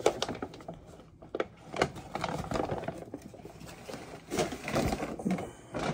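Rustling of a paper takeout bag, with scattered clicks and knocks as food containers are handled.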